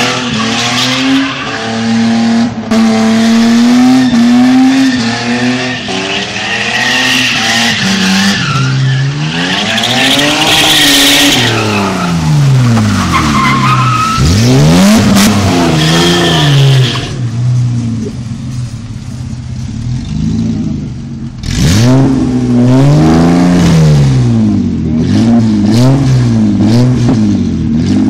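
BMW E30's engine revving up and down again and again as the rear tyres spin and squeal through donuts and burnouts. For a few seconds past the middle the tyre noise stops and the engine runs lower and steadier, then the revving and wheelspin pick up again.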